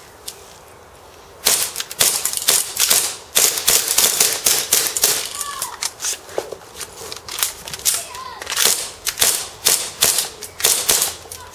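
Two gas blowback airsoft pistols, a Glock 17 and a 1911, firing fast strings of sharp cracks with the slides cycling, starting about a second and a half in. Midway the firing thins out to a few clicks while the magazines are changed, then both fire rapidly again near the end.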